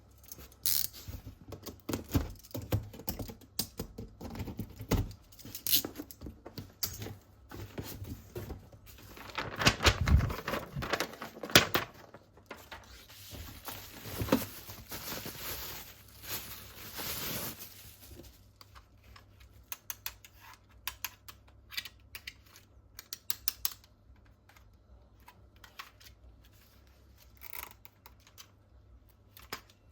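Plastic toy parts and packaging being handled, giving scattered clicks and knocks, with a few seconds of rustling near the middle.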